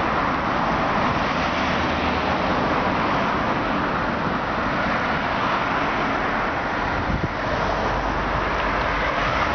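Steady road traffic noise from passing cars, an even rush of tyres and engines that holds at the same level throughout.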